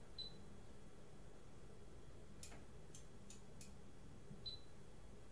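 Faint clicking: a short high tick near the start, four sharp clicks in quick succession in the middle, and another high tick near the end, over a faint steady low hum.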